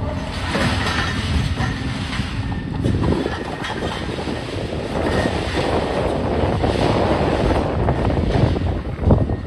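Demolition excavators at work: diesel engines running with a dense, irregular clatter of breaking concrete and metal, and a couple of sharper knocks near the end.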